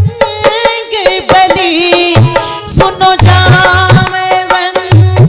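Devotional bhajan: a woman singing a long, wavering held note over a steady hand-drum rhythm, with clapping along to the beat.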